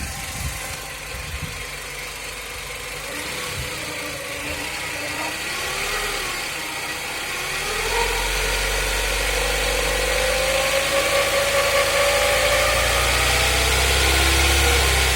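2006 Hyundai Coupe 2.0 inline-four running with a whirring whine from the engine bay that rises and falls in pitch as the revs change. It grows louder and higher from about halfway through. The whirr comes from an overtight cambelt straining its pulleys, and peaks at about 1500–1600 rpm.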